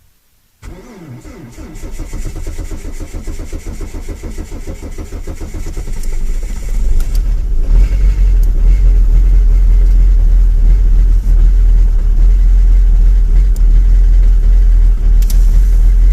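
Diesel car engine cold-started in extreme frost, around −30 °C. The starter cranks with an even rhythm for several seconds, then the engine catches and runs loudly and steadily.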